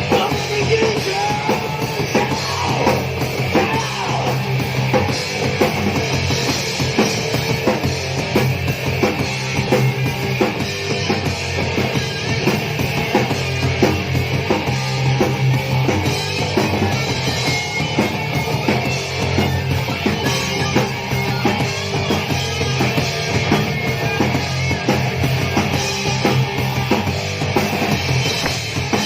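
Crust punk band playing live and loud: a drum kit hammering a dense, driving beat under a wall of distorted rock instruments, with no break.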